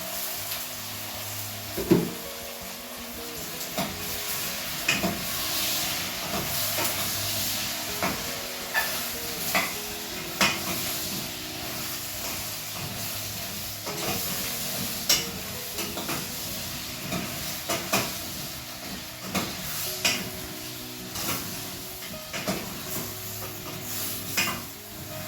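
Butternut squash and carrots sizzling in a cooking pot while being stirred, with a steady hiss and frequent sharp knocks of the utensil against the pot, the loudest about 2 s in.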